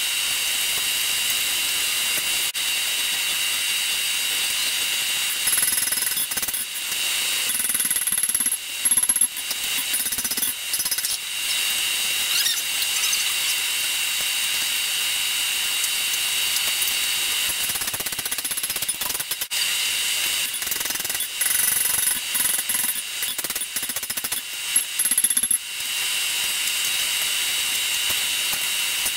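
Hand hammer striking hot 5160 steel on an anvil, in two runs of blows: one starting about six seconds in, another about twenty seconds in, each lasting around five seconds. A steady high mechanical whine goes on underneath.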